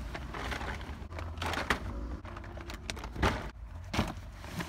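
Reusable woven shopping bags being lifted and set down on a car's carpeted cargo floor: rustling, with a few knocks as they land, over a steady low rumble.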